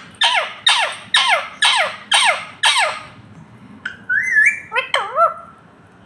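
Rose-ringed parakeet squawking: a rapid run of about six shrill, downward-sweeping calls, then after a short pause a few shorter wavering calls.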